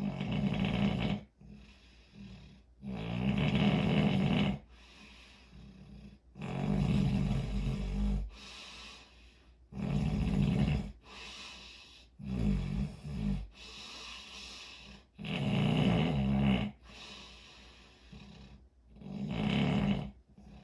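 A person snoring in a slow, steady rhythm: seven loud snores, each a second or two long and about three seconds apart, with quieter breathing between them.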